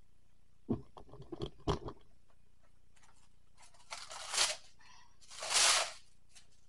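Glad Press'n Seal plastic wrap being handled and pulled off its roll: a few knocks and rattles from the box about a second in, then two crackling pulls of the film, the second one the loudest.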